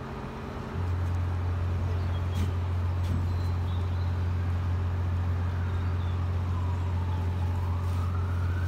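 A large crawler crane's diesel drive sets in as a steady low drone less than a second in and holds while the slung excavator load is lowered. Near the end a distant siren wails, falling then rising in pitch.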